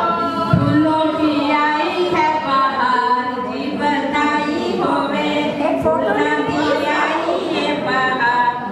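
Women's voices singing unaccompanied, with long held notes, and a brief low thump about half a second in.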